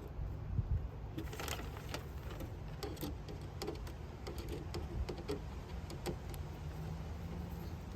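Small metallic clicks and clinks of screws and hand tools being handled while the door lock actuator is screwed back in place, over a steady low rumble.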